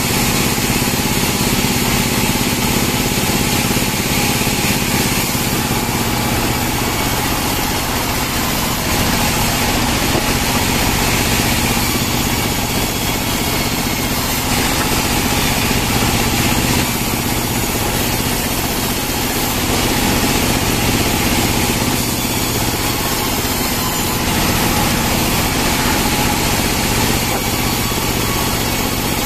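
Engine-driven bandsaw mill running steadily while a merkus pine log is pushed through the blade and sawn.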